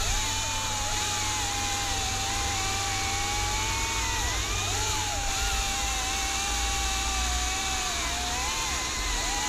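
Cordless top-handle chainsaws, a Milwaukee M18 and a Husqvarna T540i XP, cutting through logs: a steady motor-and-chain whine that dips in pitch several times as the chains bite into the wood, then climbs back as each cut frees.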